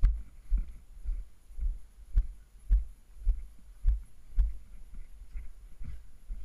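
Footsteps of someone jogging along a dry dirt and gravel path, heard as dull thumps a little under twice a second as the worn camera jolts with each stride; the steps grow softer near the end.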